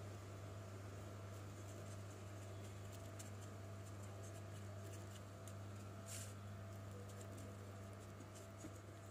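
A steady low electrical hum, with faint scattered scratching and rustling from fingers working boiled eggs in spice powder on a steel plate, the clearest about six seconds in.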